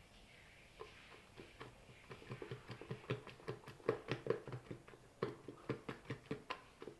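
A spatula knocking and scraping against the side of a metal mixing bowl as batter is scraped out into a pan: a run of irregular taps, several a second, busiest and loudest in the middle.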